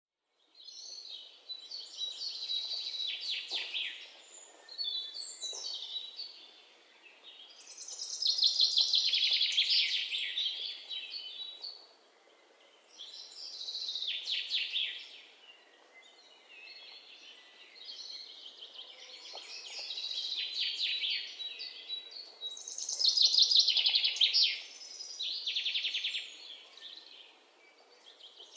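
Small songbirds chirping and singing in phrases of rapid high trills, each phrase lasting a few seconds, with short lulls between them.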